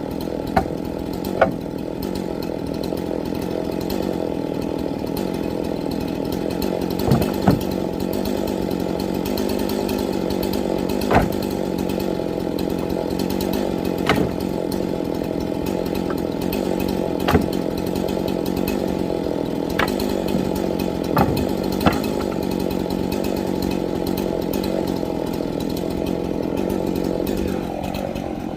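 Two-stroke chainsaw running at a steady speed, with sharp knocks every few seconds.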